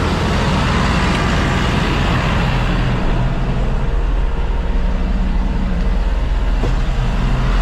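John Deere 5100M tractor's diesel engine running steadily while moving slowly.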